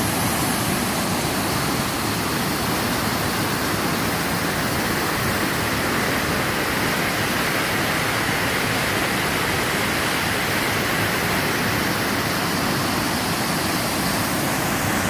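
Spirit Falls waterfall pouring, a loud, steady rush of falling water.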